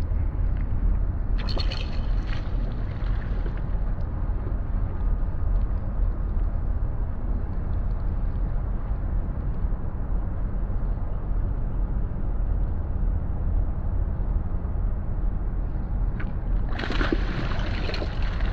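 A hooked fish splashing and thrashing at the water's surface near the end, over a steady low rumble of moving river water. A shorter splashy burst comes about a second and a half in.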